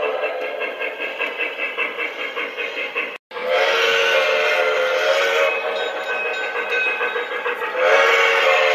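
Sound system of a Lionel Legacy two-truck Shay model steam locomotive: rapid, even steam chuffing, then the steam whistle blowing with a chord of several steady tones, sounding again loudly near the end. The sound drops out for an instant about three seconds in.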